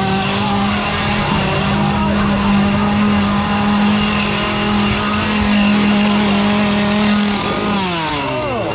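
Small two-stroke chainsaw engine held at high revs, a steady high-pitched buzz for several seconds, then throttle released so the engine winds down near the end.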